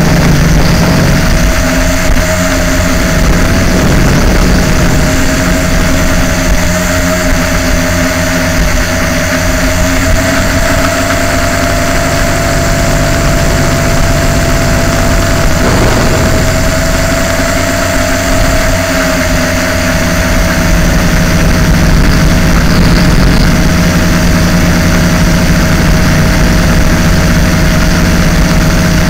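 LaTrax Alias quadcopter's motors and propellers running in flight, a loud, steady whine over a hum, heard close up through the craft's own onboard camera.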